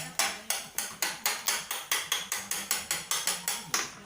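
Knife chopping on a cutting board in quick, even strokes, about four a second, stopping near the end.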